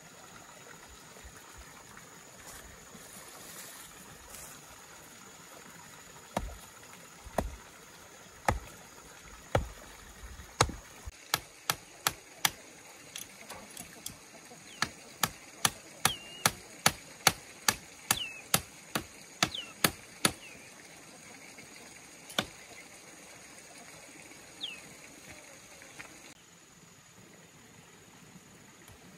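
Sharp knocks of a hand tool striking wood: a few spaced strikes, then a quick run of about two a second through the middle, then only one or two more. Short bird chirps sound among the strikes.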